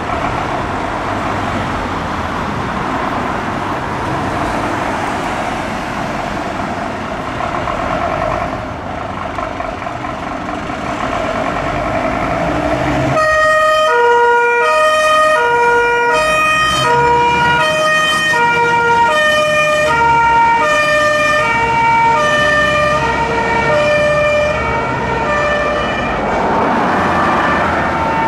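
Scania fire engine's diesel engine running with a steady rumble. About halfway through, its old-style two-tone siren starts: a high and a low note alternating, about one pair a second. A rising wail comes in near the end.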